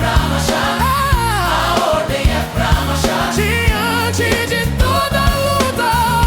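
Groove soul gospel music: singing with vibrato over a steady drum beat and bass.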